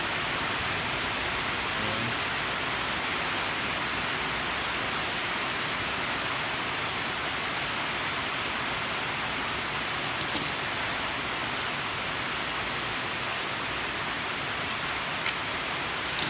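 Steady, even hiss that sits over everything, with a few short light clicks about ten seconds in and again near the end.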